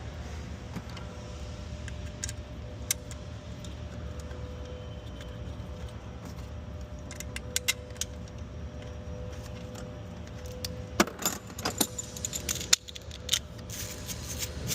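Metal clinks and clicks of bolts and hand tools being handled while the EGR valve bolts are fitted. The clicks come scattered, grow busier about eleven seconds in and end in a quick run of clicks, over a steady low hum.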